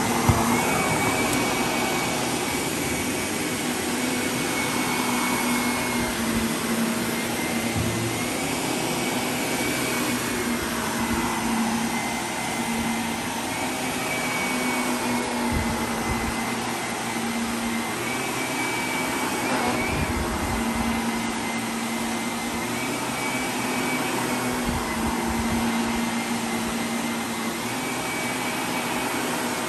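Shark upright vacuum cleaner running on carpet: a steady motor whine and hiss of suction, its pitch stepping up slightly and back down every few seconds as it is pushed back and forth in strokes.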